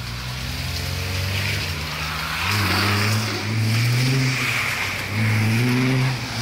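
A car engine revving hard in repeated surges with short dips between them, with tyre hiss on a wet road.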